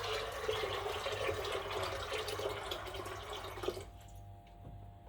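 Water running from a tap and splashing, stopping about four seconds in.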